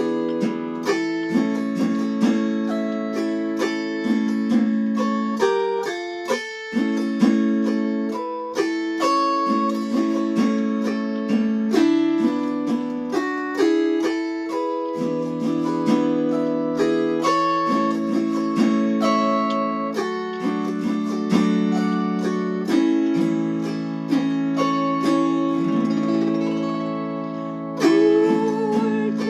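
Chromaharp (autoharp) playing a slow hymn melody: plucked single notes ringing over strummed chords, with the low strings sustaining underneath.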